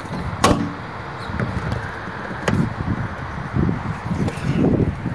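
Plastic pressure clips of a VW MK6 Jetta trunk-lid trim cover snapping loose as the panel is pulled off: two sharp snaps, about half a second and about two and a half seconds in, with dull knocks and rubbing of the plastic panel being handled.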